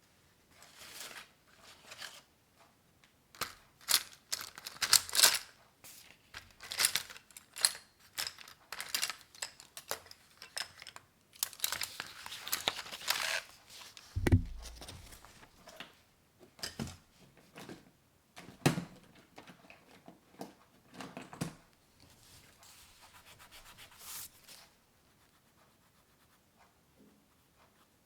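Irregular papery tearing and crinkling in many short strokes, with a dull thump about halfway through.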